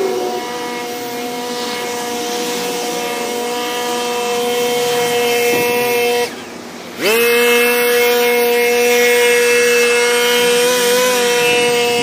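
Backpack leaf blower engine running at high throttle with a steady whine. About six seconds in it drops off briefly, then revs straight back up and runs on.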